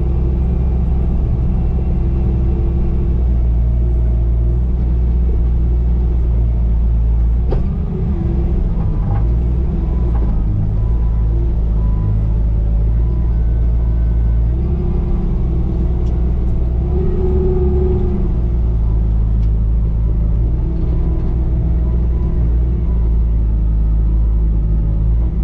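Bobcat T595 compact track loader's diesel engine running steadily at working revs while grading, with a brief knock about seven seconds in.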